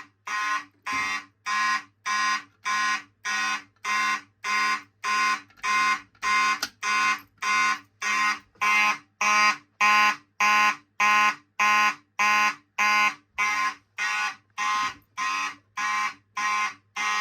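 Fire alarm DC horns sounding in 90 beats-per-minute march-time code, driven by a Collectors Controls CB-636AD NAC coder: short even blasts about one and a half a second, cutting off abruptly at the end.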